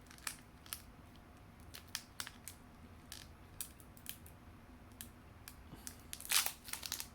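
A foil Pokémon TCG booster pack being opened and its cards handled: scattered small crackles and clicks, with a louder burst of crinkling about six seconds in.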